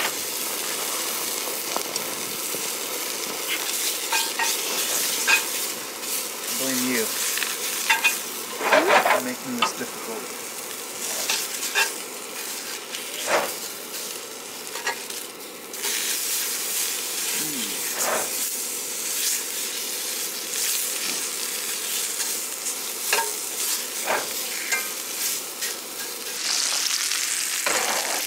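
Small wood fire crackling in a folding metal fire grill: a steady hiss broken by scattered sharp snaps and pops, with a cluster of louder pops about a third of the way in.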